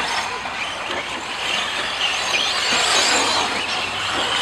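1/10-scale 4WD short course RC trucks racing on a dirt track: motors whining up and down in pitch as the trucks speed up and slow through the turns, over the hiss of tyres on dirt.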